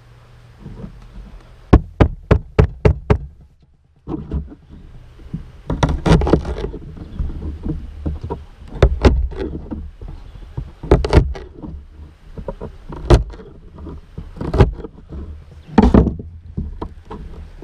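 Camp gear being handled: a quick run of about six sharp knocks, then, after a short pause, an irregular series of knocks and clatter.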